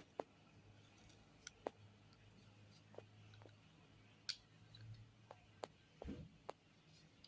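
Faint, irregular clicks and light taps of packaging and items being handled, about a dozen over several seconds, with a low steady hum underneath.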